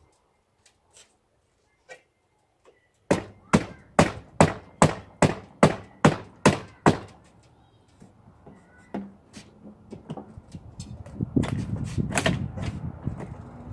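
A run of about ten hammer blows, evenly spaced a little under half a second apart, on the old wooden window frame as it is knocked loose. After a pause come lighter knocks and a growing rough noise, with two harder knocks near the end.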